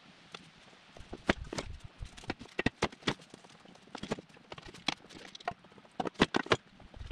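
Irregular knocks and clanks of steel boat lift parts and a long metal bar being handled and bumped together, starting about a second in.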